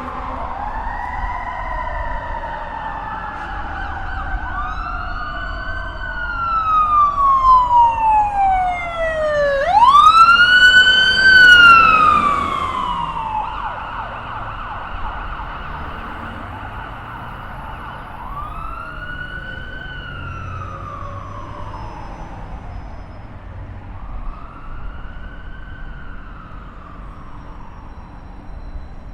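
Police car sirens wailing, several at once in slow rising and falling sweeps over a low rumble. One siren is loudest from about a fifth to two fifths of the way in, climbing sharply near a third of the way through. The wails then grow fainter and more widely spaced.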